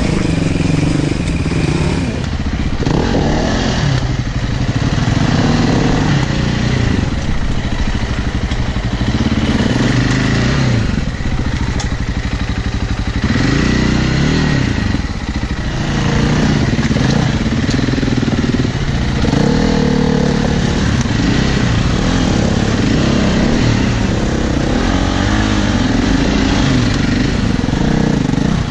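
Enduro motorcycle engine at low speed, revving up and down in repeated throttle blips as it is ridden slowly over rocks.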